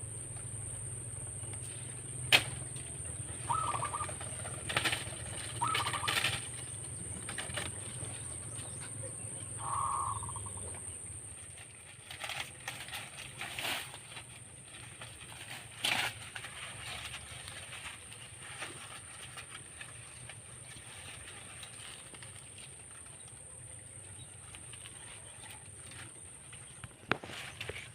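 Zebra dove flapping its wings in several short bursts, with a steady high-pitched insect buzz throughout.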